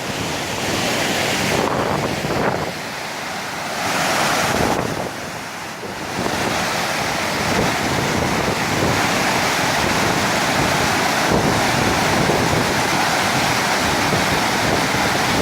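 Floodwater of a river rushing at a dam, a continuous hiss of water, uneven for the first few seconds and steadier from about six seconds in, with wind buffeting the microphone.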